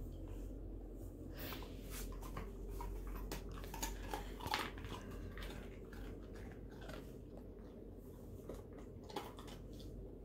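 A dog chewing a small treat, with faint, irregular crunches.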